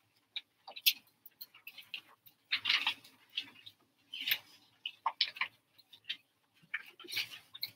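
Paper pages of prayer books being turned and leafed through by the congregation: irregular short rustles and flips, several a second.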